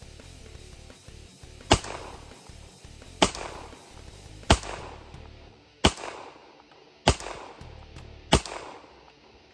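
A Rock Island Armory 1911 pistol in 9mm fired six times at a steady pace, about one and a quarter seconds apart. It cycles through the magazine without a malfunction.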